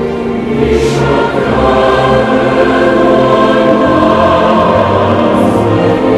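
Background music with a choir singing long sustained chords over an accompaniment.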